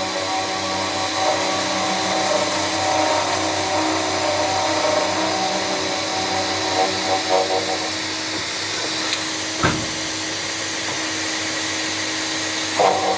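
CNC machine running with a steady whine and hum, its cutter working the material for the first eight seconds or so and again near the end. A single sharp knock comes about ten seconds in.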